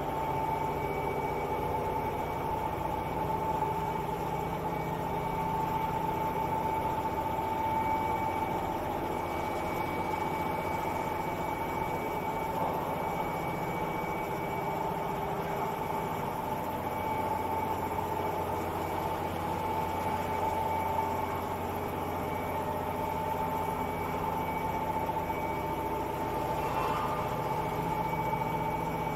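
Bag-in-box (BIB) bag making machines running with a steady mechanical hum and a constant high whine.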